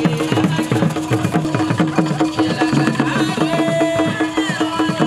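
Traditional Ghanaian drum ensemble playing a steady, fast, repeating rhythm for dancers, with hand percussion over the drums.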